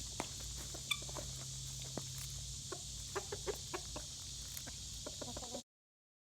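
Backyard chickens clucking softly in short scattered calls over a steady high insect buzz. The sound cuts off suddenly near the end.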